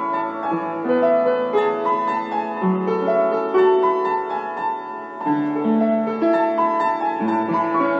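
Piano music playing a slow melody of held notes.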